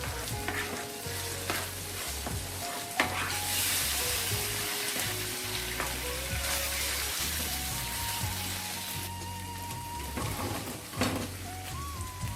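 Food sizzling in a hot pan as it is stirred. The sizzle swells about three seconds in and eases off after about nine, with a few sharp knocks of the spatula against the pan.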